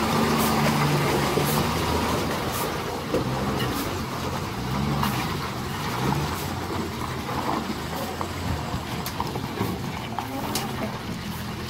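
Diesel engine of a Tata multi-axle tipper truck running as the truck crawls through a muddy, rutted track. Its note rises and falls and grows fainter as it moves away.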